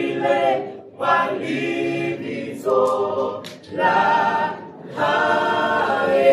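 Small choir of men and women singing in harmony without instruments, held notes in short phrases with brief breaks between them.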